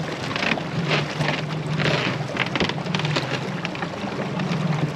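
A boat's motor running with a steady low hum, with irregular water splashes and wind buffeting the microphone.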